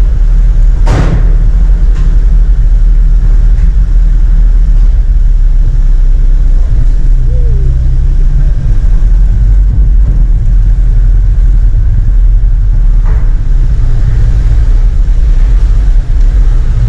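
Truck engine running as the truck drives onto a ferry's vehicle deck, heard from inside the cab as a steady low rumble. A sharp knock comes about a second in, with a fainter one later.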